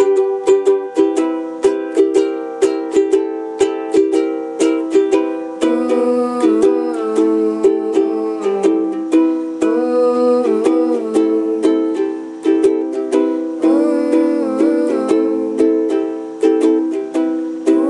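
Strummed acoustic string instrument playing chords in a steady rhythm, the instrumental ending of a song.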